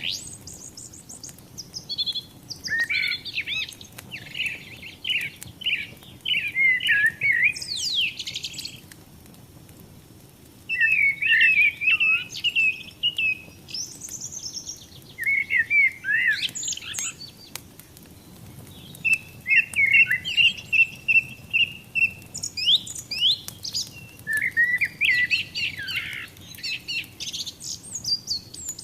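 Songbirds singing in repeated chirping, trilling phrases with short pauses between them, over the faint crackle of a burning wood fire.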